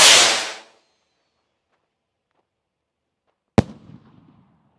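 Hellcat 5 ft consumer firework rocket taking off with a loud rushing hiss that fades within a second. About three and a half seconds later comes the single sharp bang of its burst, with a short rumbling tail.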